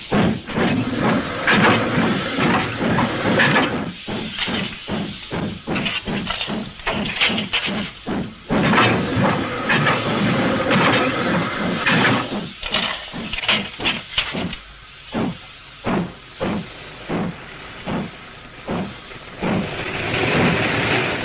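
A JNR Class 9600 steam locomotive working under steam. It gives out rhythmic exhaust chuffs with steam hissing from the cylinders, and the beats slow from about three a second to about one and a half a second as it labours. Near the end a steadier rushing hiss comes in as it ploughs into a snowdrift.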